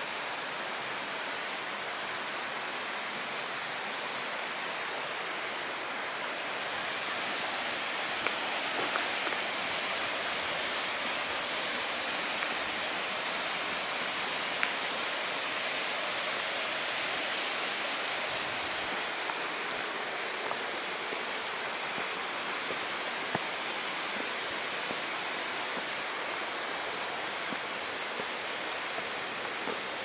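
Steady rush of falling water, getting a little louder about seven seconds in, with a few faint ticks over it.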